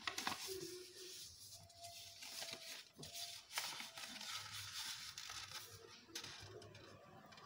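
A sheet of paper being handled and folded by hand: rustling and sliding as it is creased, with a few short sharp crackles.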